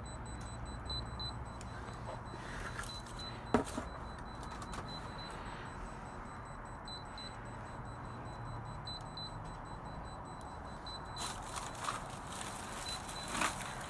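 High-pitched electronic beeping from an unidentified device buried in a dumpster: short beeps, often two or three close together, at irregular intervals. A sharp knock comes about three and a half seconds in, and trash rustles near the end.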